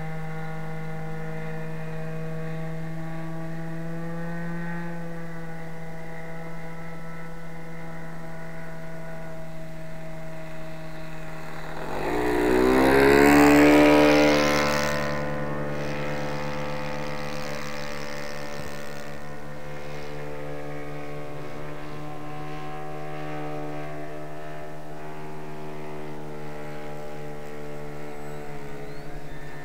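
Radio-controlled model airplane's motor and propeller droning overhead. About twelve seconds in it swells loud as the plane makes a close pass, its pitch shifting, then falls back to a steady drone.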